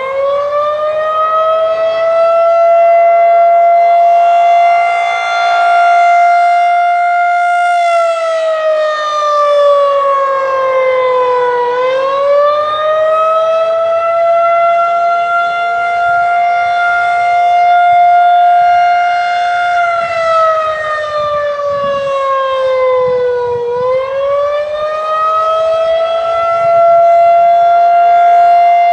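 Federal Signal 2001-130 rotating siren sounding an attack signal on 8-4 timing. The tone winds up and holds high for about eight seconds, then falls for about four before winding up again, a little over two cycles in all.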